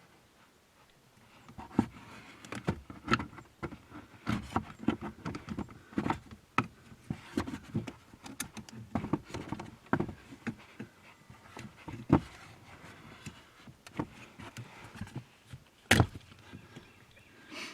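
Stock rubber pad being pried and pulled off a car's metal brake pedal by hand: irregular clicks, knocks and rubbing, with sharper knocks about 12 and 16 seconds in.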